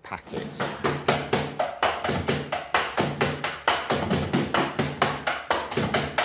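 Fast, steady drumming on an electronic drum kit, about five or six hits a second.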